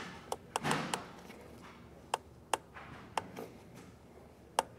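Several sharp, small clicks at irregular intervals, with a brief rustle early on, as wire connectors are handled and pushed into place on the refrigerant identifier of a Robinair AC1234-4 AC machine.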